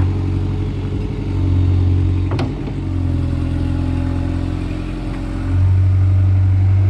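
Skid steer engine running under changing load, growing louder about a second and a half in and again near the end as it pushes. About two and a half seconds in there is one sharp knock.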